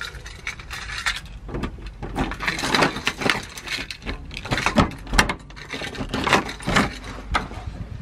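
Keys jangling on a keyring and a key scraping and clicking in the lock of a wooden front door as it is unlocked, with a series of sharp clicks and rattles that are loudest about halfway through.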